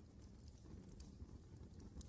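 Wood fire burning in a fireplace: a faint low rumble of the flames with scattered small crackles and pops, the clearest about a second in.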